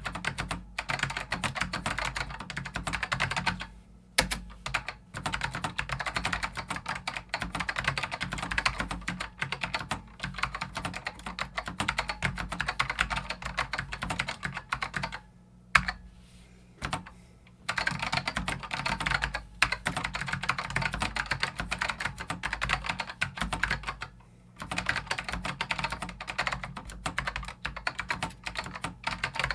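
Fast typing on a BigKeys LX keyboard with Alps SKBM White switches and oversized 1-inch keycaps: a dense run of key clicks with a few brief pauses and one loud single clack about halfway through. These switches are scratchy and bind easily under the big keycaps.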